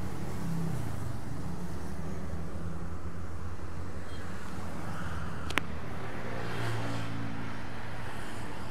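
Steady low engine hum of motorcycle traffic on the road, with one sharp click a little past the middle.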